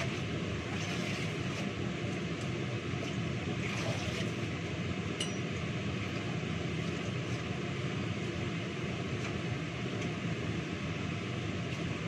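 Tap water running steadily into a kitchen sink while spinach is rinsed by hand in a plastic colander, with a few light clinks.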